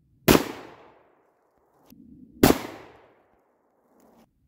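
Two shots from an H&R 1871 Pardner pump-action 12-gauge shotgun firing birdshot, about two seconds apart, each a sharp blast with a short echoing tail.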